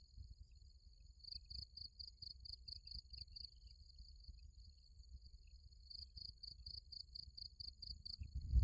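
Insects chirping: a steady high whine with a pulsing trill of about five chirps a second that comes and goes, over a low rumble. A low thump comes at the very end.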